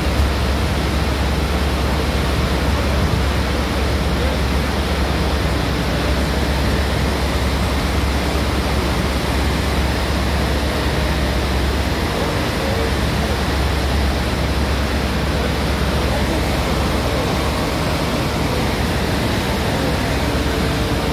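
Steady, loud rush of a muddy mountain stream in flood pouring through a narrow channel.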